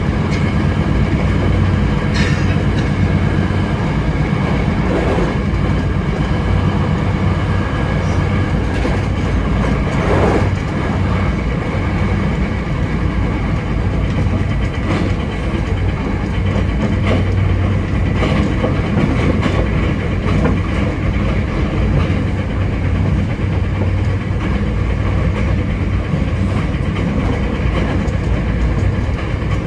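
Hankyu 7300 series electric train running at speed: wheels clattering over rail joints under a steady hum, with occasional brief clicks.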